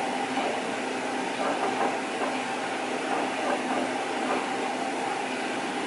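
A 2002 eMac booting from its SuperDrive: steady whirring hum and hiss of the computer's fan and spinning DVD drive as it reads the Mac OS X Tiger install disc.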